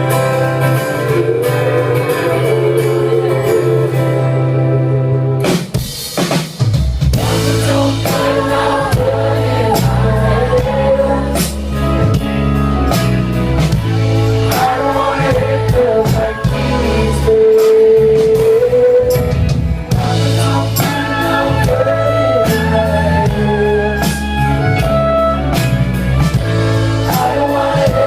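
An indie-folk band playing a song live, with singing over guitar and a held low bass. Drums come in about five and a half seconds in and keep a steady beat after that.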